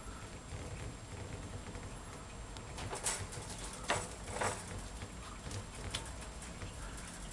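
Two cats scuffling inside a wire cage: faint shuffling on the slatted wire floor with three sharp clicks and rattles of the wire bars in the middle.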